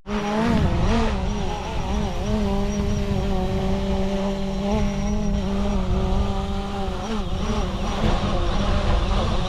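Fishing drone's propellers whirring in flight, a steady hum with a slightly wavering pitch, just after it has released the bait. A low rumble of wind on the microphone runs underneath.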